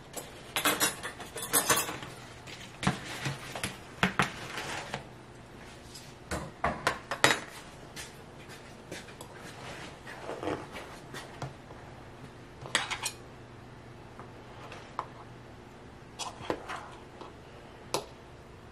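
A utensil scraping and clinking against a cake pan as a chocolate cake is cut, in irregular clusters of sharp scrapes and clicks with short pauses between.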